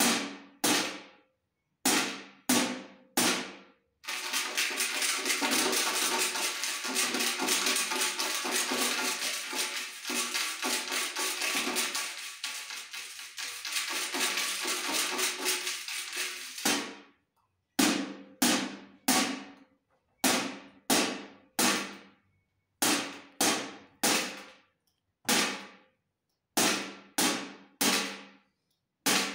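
A round metal tin beaten with a drumstick: single ringing hits, then a fast roll of hits lasting about thirteen seconds from about four seconds in, then single hits again.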